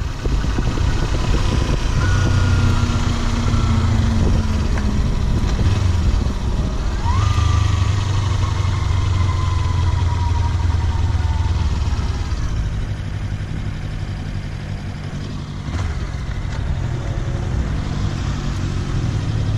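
Kawasaki Versys-X 300's parallel-twin engine running with wind rushing past, its note falling twice as the bike slows, the second time after a short blip about seven seconds in. The wind eases off about twelve seconds in.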